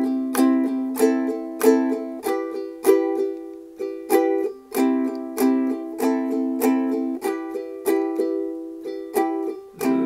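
Ukulele playing chords in a steady rhythm of bright strums, each ringing on until the next. Just before the end a lower sustained part joins in.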